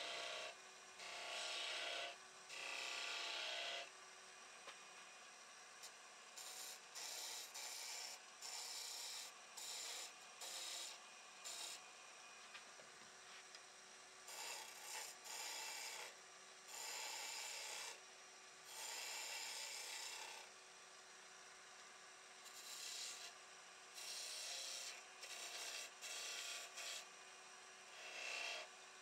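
Wood lathe turning a golden cypress blank, a hand-held turning tool shaving and scraping the spinning wood in repeated short passes, each about a second or less, over the lathe's faint steady hum.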